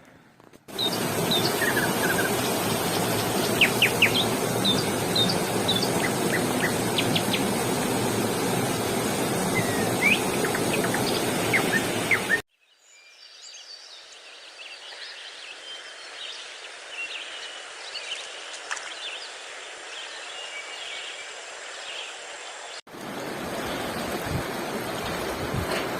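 Small birds chirping over a loud, even rushing background noise, cut abruptly about twelve seconds in to a quieter stretch with scattered chirps, and cut back to the loud rushing noise near the end.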